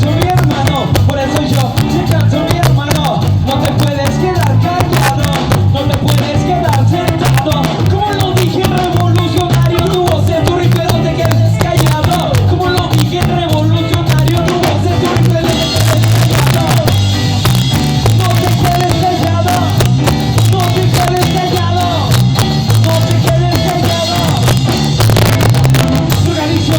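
A ska band playing live, with drum kit, bass and melody instruments and some singing, recorded through a distorting phone microphone.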